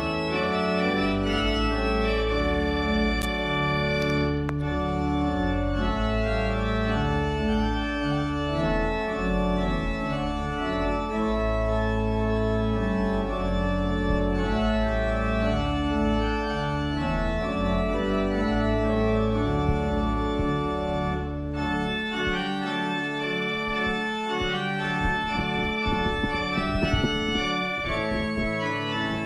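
Organ music: held chords that shift every second or two, with the deep bass notes dropping out about two-thirds of the way through.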